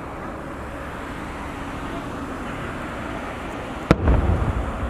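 An aerial firework shell bursts with a single sharp bang about four seconds in, followed by a deep rumble that dies away over a steady background of noise.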